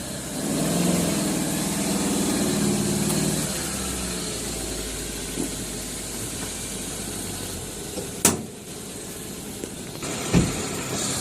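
A Toyota Corolla GLi's 4A-FE four-cylinder engine running, with a stronger, pitched note for the first few seconds before settling to a steady low rumble. One sharp knock comes about three quarters of the way through, and a duller thump follows near the end.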